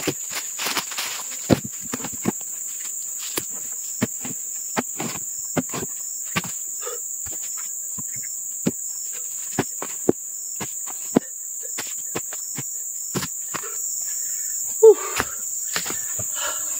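Steady high-pitched drone of insects, with irregular sharp knocks or taps about once or twice a second and a louder knock near the end.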